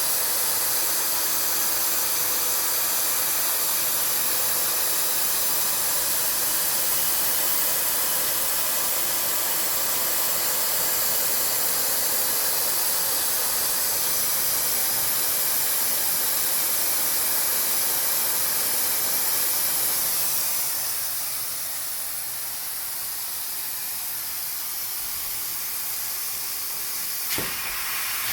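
CNC machine at work on a Ford 6.4L diesel piston, giving a steady spraying hiss that turns somewhat quieter about two-thirds of the way through. A single sharp click comes near the end.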